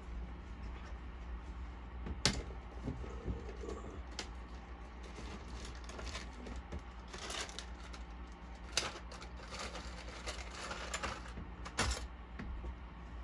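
Scattered small clicks, taps and rattles of small objects being handled, a few sharp ones standing out about 2, 9 and 12 seconds in, over a steady low hum.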